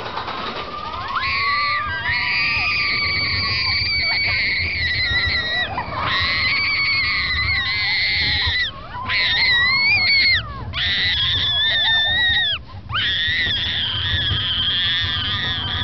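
Young child screaming with excitement on a roller coaster: a string of long, high-pitched screams, broken by short pauses for breath, over a low rumble.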